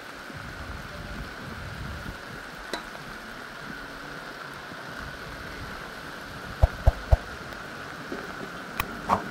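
A steady, even noise runs throughout, with three dull thumps in quick succession about two-thirds of the way through.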